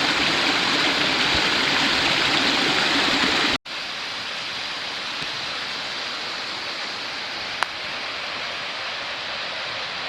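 Rushing water of a mountain stream, a steady loud hiss. About a third of the way in it cuts off abruptly and resumes quieter, with one brief click near the end.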